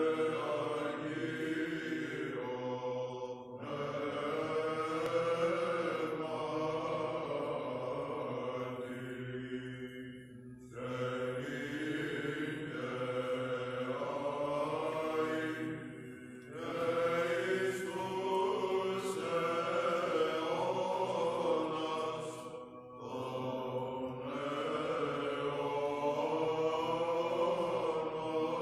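A small group of male chanters sings Byzantine chant together in long phrases, with short breaks between them, over a steady held low note. The singing echoes in a large stone church.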